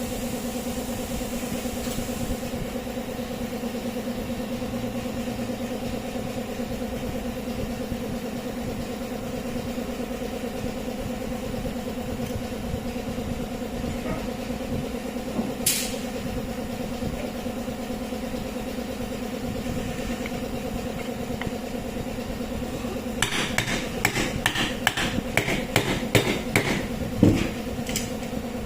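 A small electric motor running at a steady pitch. There is a sharp click about halfway through, then a run of clicks and knocks near the end.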